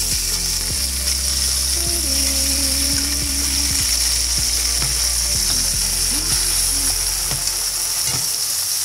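Beef short ribs sizzling as they brown in oil in an aluminium pot, with a few irregular clicks and scrapes of metal tongs against the meat and pan as the pieces are turned.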